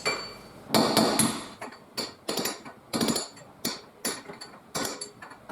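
Hammer blows on a seized rear wheel hub to drive it out of its carrier, about a dozen sharp metal-on-metal strikes, two or three a second at uneven spacing, each with a short ring.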